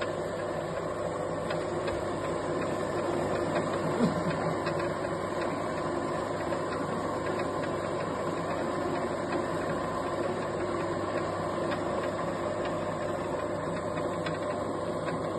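Small electric noodle-making machine running steadily, its motor humming with a few steady tones as the rollers and cutter turn and a sheet of dough is fed through into noodles. A single short knock about four seconds in.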